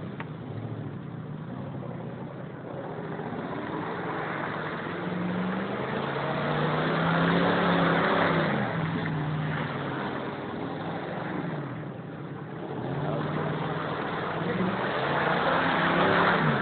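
Pickup truck engine revving up and easing off in waves as the truck churns through mud. The revs peak about halfway through and rise again near the end.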